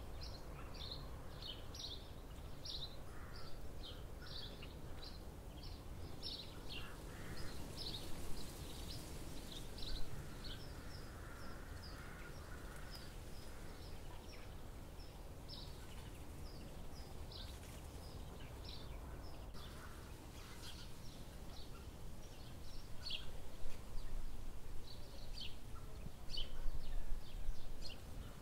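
Small birds chirping: many quick high chirps in the first few seconds, then sparser, over a steady low rumble of outdoor background noise that grows louder near the end.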